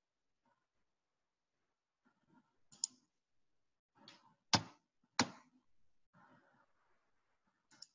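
Computer mouse clicks: a few short sharp clicks, one about three seconds in, the two loudest a little under a second apart in the middle, and another near the end, with faint rustling between.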